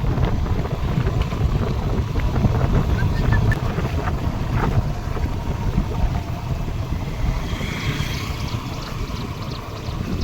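Wind buffeting the microphone: a steady, fluttering low rumble with a fainter hiss above it.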